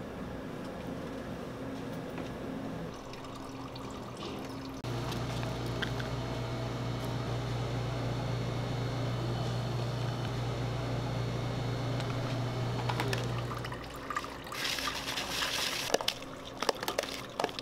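Kitchen food preparation against a steady appliance hum. About fourteen seconds in there is a short rushing sound as chopped toppings are tipped from a small bowl into a serving bowl, followed by a run of light clicks and clatter.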